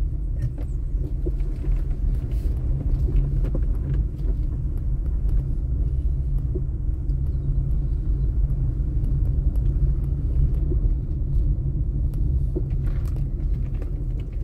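Steady low rumble inside a moving car's cabin, mostly tyre noise on a street paved with interlocking concrete blocks, together with the hum of the engine.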